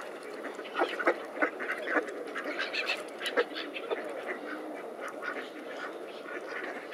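Mallard ducks quacking: a quick run of short quacks through the first few seconds, with softer calls after, over a steady background of other waterbirds.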